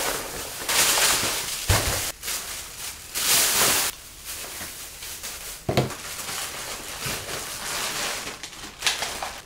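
Plastic shopping bags rustling and crinkling as items are taken out and unpacked onto a desk, with louder bursts of rustling and a few light knocks as things are set down.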